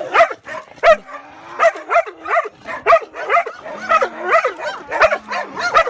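Dog barking in quick, short yaps that rise and fall in pitch, about two to three a second, with a low drawn-out growl-like tone between some of them, as it play-fights with its owner.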